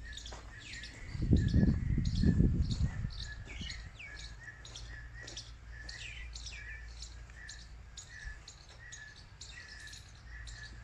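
Many small birds chirping and twittering throughout, with a loud low rumbling noise from about one to three seconds in.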